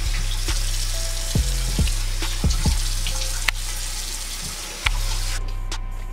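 Tap water running into a bathroom sink while hands splash water onto a face; the flow stops about five seconds in.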